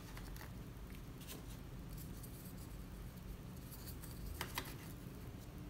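Faint taps and clicks of small 3D-printed plastic parts being handled and set onto a plastic mounting plate, with two sharper clicks in quick succession about two-thirds of the way through, over a low steady room hum.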